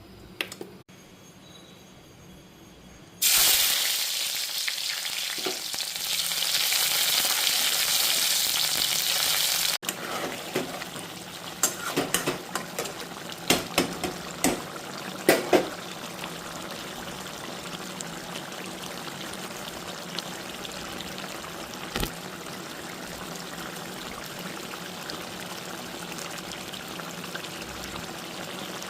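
Food hitting hot oil in a pan: a loud sizzle starts suddenly a few seconds in and runs for about six seconds, then drops to a steady, softer frying sizzle. In between come a series of sharp scrapes and clinks of a spatula stirring in the pan.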